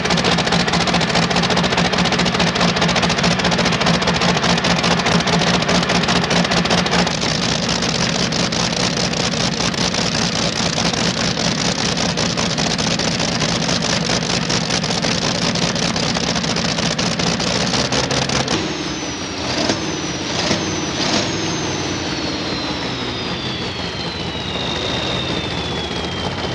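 Modified pulling-tractor engine with open stacked exhausts running loud and steady. About 18 seconds in the sound changes to a few quick revs and a high whine that falls slowly in pitch.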